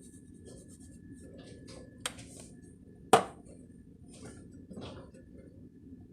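Pepper being shaken from a shaker over eggs in a skillet, in a few short rattling bursts, with a small click about two seconds in and a sharp knock, the loudest sound, about three seconds in.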